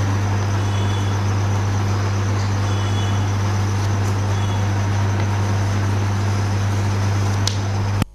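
Steady low electrical hum with a constant hiss behind it, the background noise of the room recording. It cuts out abruptly near the end.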